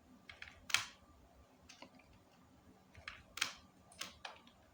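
Scattered clicks and taps of a computer keyboard and mouse, several short strokes at irregular intervals, the loudest about three quarters of a second in.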